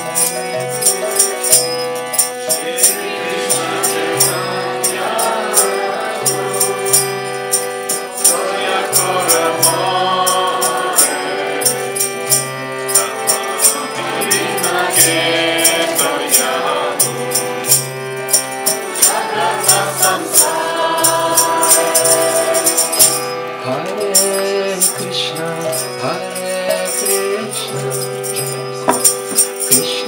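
Devotional bhajan: a harmonium holding chords and melody under voices singing, with karatalas (small hand cymbals) clashing in a steady beat.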